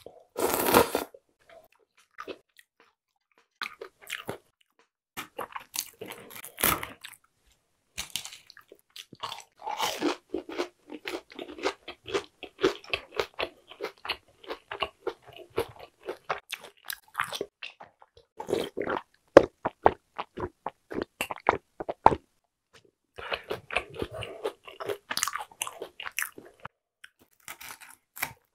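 A mouthful of buckwheat soba noodles slurped once just after the start, then long stretches of close-miked chewing: dense runs of small wet clicks and crunches, broken by short pauses.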